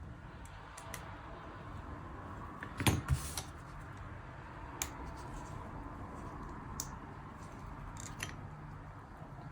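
Small metal tools clicking and tapping against the parts of an iPhone 11 during repair: a few scattered sharp clicks, loudest about three seconds in, over a faint steady low hum.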